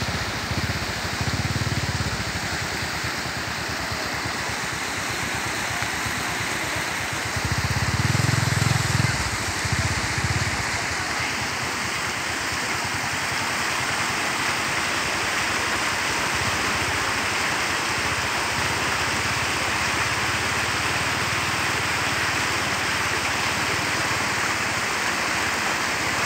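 Steady outdoor noise haze with wind rumbling on the microphone, gusting louder about a second in and again around eight seconds.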